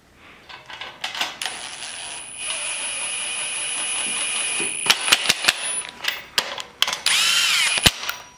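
Cordless power ratchet running down the main bearing girdle bolts on a Honda D16Z6 block, snugging them for a Plastigage check of main bearing clearance. A steady motor whine lasts several seconds, then come sharp clicks and a short whine that rises and falls near the end.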